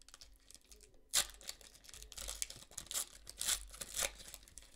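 Foil trading-card pack being torn open by hand: one sharp rip about a second in, then the wrapper crinkling as it is peeled back from the cards.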